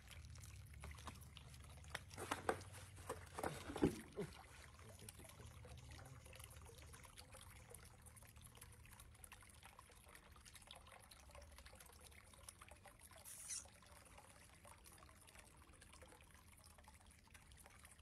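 Faint water trickling and pouring in a plastic tub as warm bath water is mixed, with a few sharp sounds about two to four seconds in.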